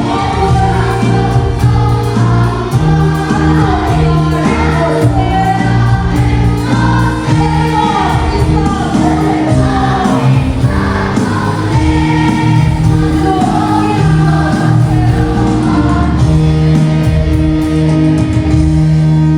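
A choir singing a gospel hymn in sustained, held notes over a steady low accompaniment.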